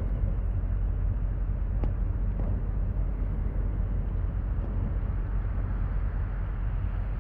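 Steady low rumble of the passing lake freighter Cuyahoga, a self-unloading bulk carrier.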